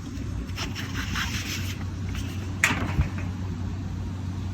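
Pleated air filters being handled in a unit's filter track: rustling scrapes, then two sharp knocks about two and a half and three seconds in, over a steady low hum.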